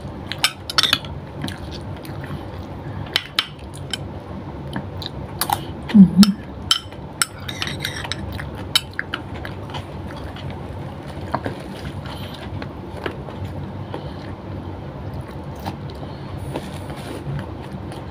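Eating sounds: a spoon clinking and tapping against a glass bowl, several sharp ticks in the first half, then quieter chewing and fingers working rice on a glass dish. A short hum of a voice about six seconds in.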